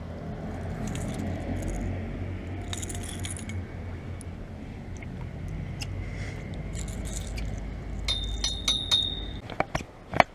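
Low rumble on the camera microphone with light metallic clinks and jingles from handled gear, a bunch about three seconds in and another around eight to nine seconds, then a few sharp knocks near the end as the camera is moved.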